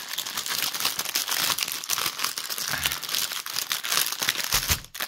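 Clear plastic wrapping around a bundle of bagged diamond-painting drills crinkling as it is handled, a dense crackling rustle with a short pause near the end.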